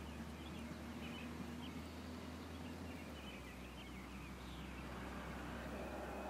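Small birds chirping now and then over a low, steady rumble. Hoofbeats on the sand are not distinct.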